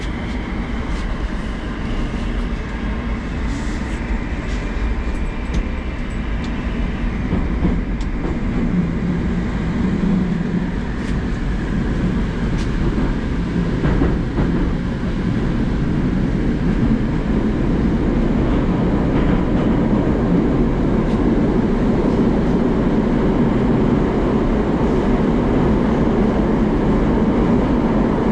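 Moscow Metro 81-765/766/767 electric train running through a tunnel, heard from inside the passenger car: a steady rumble of wheels and running gear that grows gradually louder as the train gathers speed.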